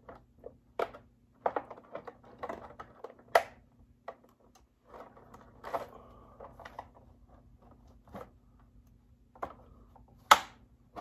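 Irregular plastic clicks, knocks and rustling as the plastic chest plate and its push-through connectors are fitted onto an Experimental Eddie animatronic. A sharp snap near the end is the loudest sound, and a faint steady hum runs underneath.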